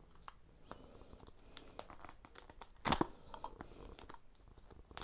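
Peel-and-stick wallpaper crinkling and rustling as it is handled and folded by hand at an outlet cutout, scattered small crinkles and clicks with one louder crackle about three seconds in.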